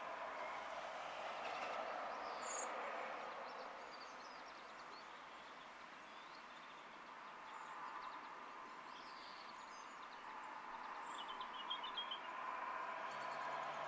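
Garden birds giving scattered brief high chirps, with a quick run of chirps about eleven seconds in, over a steady distant hum of vehicle noise.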